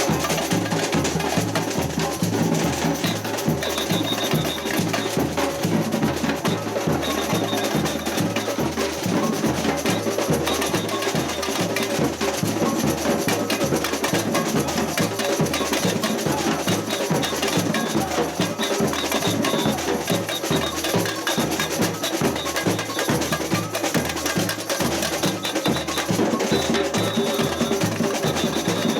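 Samba percussion band playing: deep bass drum beats about twice a second under a dense, busy mix of higher drums and clacking percussion.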